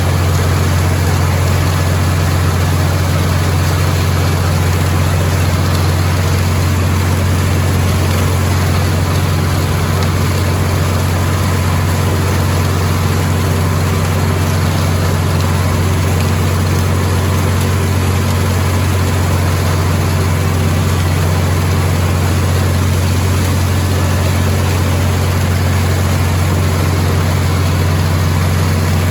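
Farm tractor engine running at a steady speed, a loud, even, low drone that does not change.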